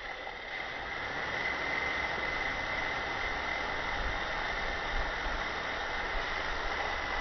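Steady hiss with a faint, constant high-pitched whine, unchanging throughout.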